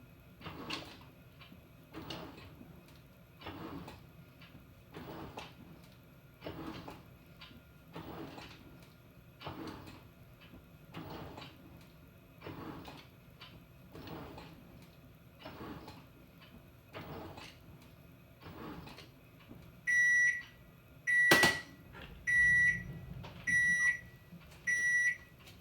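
Panasonic NA-FA100H9 top-loading washing machine's drum swishing the wet laundry in a slow, even rhythm, about once every one and a half seconds. About twenty seconds in, it gives a series of short, evenly spaced electronic beeps, the end-of-cycle signal, with a sharp click among them.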